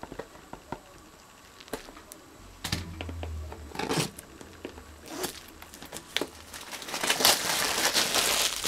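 Clear plastic shrink-wrap on a cardboard card-deck box crinkling and tearing as it is picked at and peeled off by hand. It starts as scattered crackles and builds to dense crinkling in the last couple of seconds.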